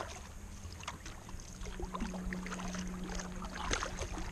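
Kayak paddle strokes on flat calm sea water: irregular small splashes and drips as the blades dip and lift. A steady low hum runs underneath from about halfway through.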